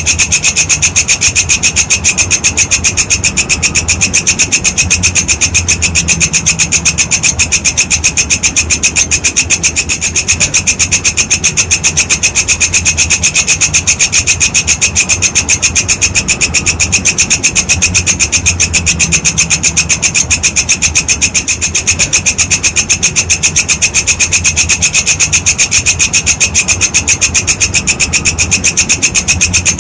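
Walang kekek insect calling: a fast, steady train of shrill, raspy pulses that runs on without a break.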